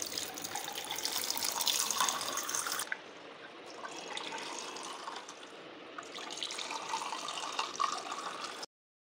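An orange drink being poured from a plastic jug into tall glasses over ice cubes: a steady splashing pour in three stretches, the first the loudest. It cuts off suddenly near the end.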